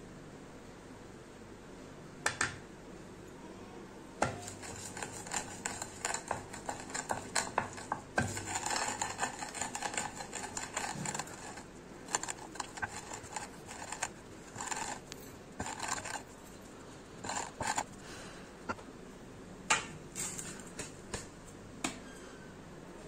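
Kitchen utensils knocking, clinking and scraping irregularly. After a sharp knock about two seconds in, there is a busy stretch of clatter in the middle, then scattered clinks.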